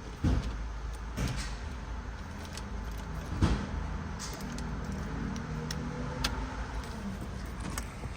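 Key clicking and rattling in the worn ignition lock cylinder of a 2010 Ford Escape, with keys jingling and one sharp click about three and a half seconds in. A faint low hum runs for a few seconds in the middle.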